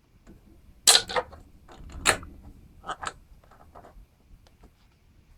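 Hard plastic clicks and knocks, with sharp ones about one, two and three seconds in and lighter ticks between: an air filter housing being worked off a small mower engine while a hose still holds it back.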